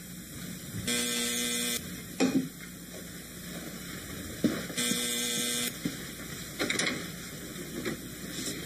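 Electric door buzzer sounding twice, each buzz just under a second long and steady in pitch, about four seconds apart, with a few light knocks in between.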